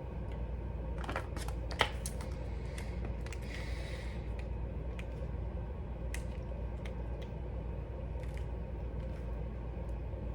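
Scattered light clicks and taps, the sharpest about two seconds in, over a steady low hum.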